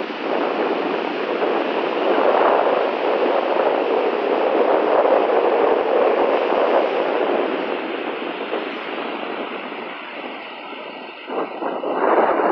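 Strong gusty wind ahead of a storm, buffeting the phone's microphone over breaking surf. It swells over the first few seconds, eases, then gusts up again briefly near the end.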